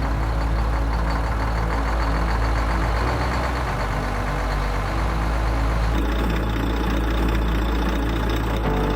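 Truck engine idling steadily with a low rumble.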